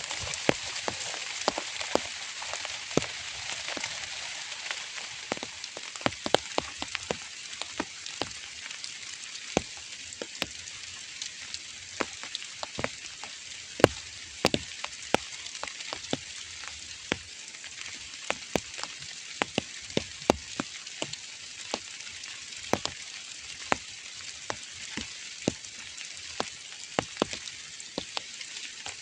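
Light rain falling steadily: a soft, even hiss with many separate drops tapping sharply and irregularly on a nearby surface.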